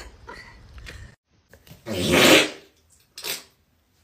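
A loud, raspy fart about two seconds in, lasting about half a second, followed a second later by a short, sharp sound.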